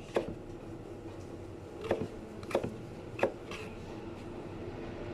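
Kitchen knife striking a cutting board in four sharp knocks: one just after the start, then three in quick succession in the middle.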